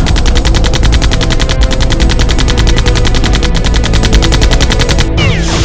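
Rapid automatic machine-gun fire, a continuous even stream of very fast shots that cuts off suddenly about five seconds in: a dubbed gunfire sound effect rather than the sound of a foam blaster.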